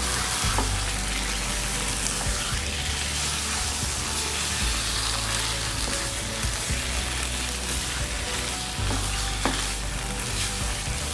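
A spatula stirring spinach and fried koftas in a hot nonstick pan, the oil sizzling steadily.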